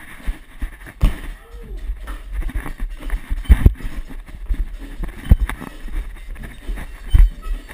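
Thumps of hands and body hitting a tiled floor, with clothing rustle, during breakdance floor moves, heard up close from a camera worn by the dancer. Irregular knocks throughout over a low rumble of handling noise, the heaviest about three and a half seconds in.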